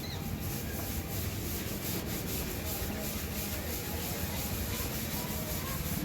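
Rubbing on a car's fender panel during dent repair: a steady, scratchy hiss of strokes against the body.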